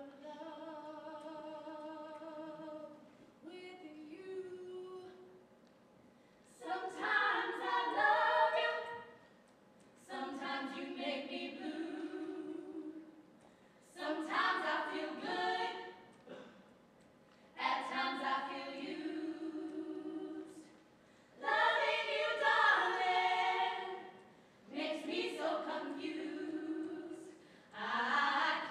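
A cappella mixed vocal ensemble singing unaccompanied. A quiet held chord opens the passage, followed by a series of louder sung phrases, each two to three seconds long, with short pauses between them.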